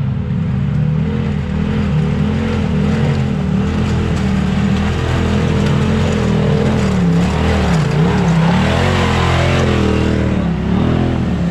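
Kawasaki Teryx KRX4 1000 side-by-side's parallel-twin engine running on the trail, its pitch rising and falling over and over as the throttle is worked.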